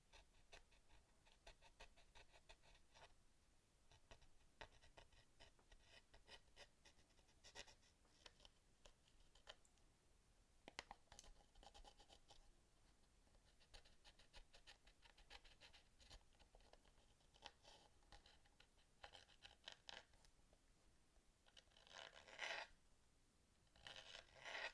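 Faint, rapid scratching and scrubbing strokes on a PS4 controller's plastic during cleaning, in short runs, with two louder rasping scrubs near the end.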